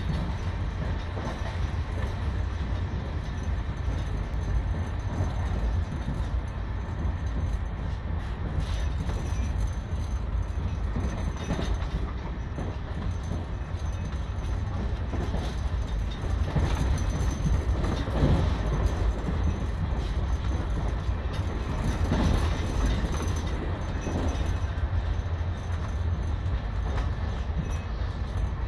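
Express passenger train running at about 130 km/h, heard from on board: a steady low rumble of wheels on rail with rushing noise, and a few short louder clatters, most around the middle.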